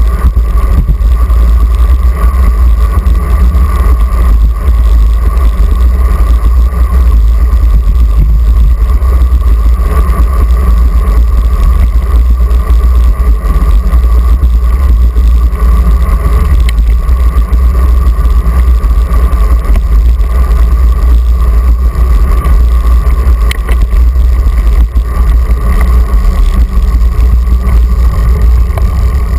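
Wind buffeting an action camera's microphone on a moving bicycle, a loud steady low rumble, with the hiss of tyres rolling on pavement.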